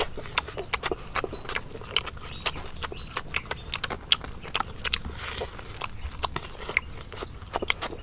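A person chewing cooked grasshoppers: a steady stream of short, sharp, irregular crunches as the mouthful is bitten and chewed.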